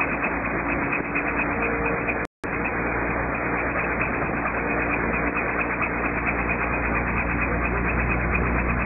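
Steady engine, tyre and wind noise of the car towing an engineless gyroplane, heard from inside the car as it drives at a constant speed. The sound cuts out completely for a split second about two seconds in.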